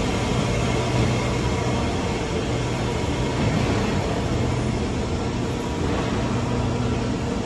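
Kawasaki Nippon Sharyo C751B electric metro train running slowly into the platform as it brakes towards a stop, with steady rumble and rail noise and a faint whine fading early on.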